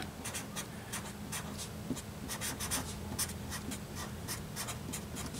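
Sharpie felt-tip marker writing block letters on paper: a quick, uneven run of short stroke sounds.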